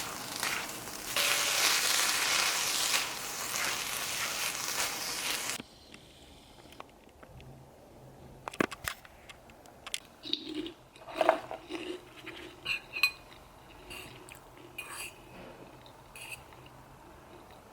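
A loud steady hiss that cuts off suddenly about five and a half seconds in, followed by quieter scattered clinks and knocks of dishes and cutlery.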